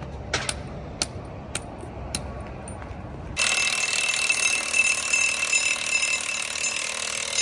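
A few sharp clicks about every half second, then from about three seconds in a cordless impact wrench hammers steadily with a high whine, running the nuts on a wheel spacer bolted to the crawler's wheel hub.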